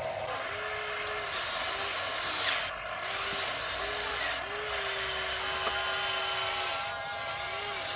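Small electric motors of a radio-controlled model excavator whining in short spurts as its functions are worked, with one longer run about halfway through, over a steady hiss.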